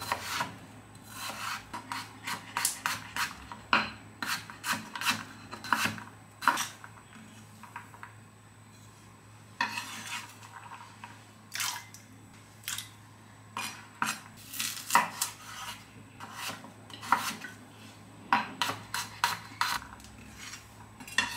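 Chef's knife chopping a raw potato into cubes on a bamboo cutting board: quick irregular runs of sharp knocks of the blade on the board, broken by short pauses.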